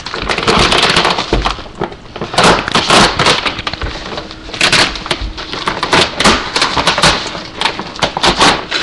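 Packaging wrap being torn and crumpled off a shipping box: loud, irregular ripping and crackling with rustling between.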